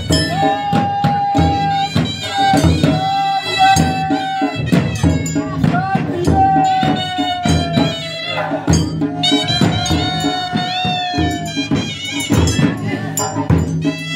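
Himachali traditional temple music: a high wind instrument plays long held notes that bend in pitch, over steady, dense drumming on dhol drums.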